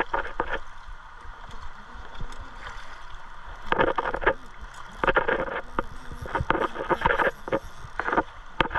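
River water rushing and splashing close to the microphone, with several louder splashy bursts from about four seconds in.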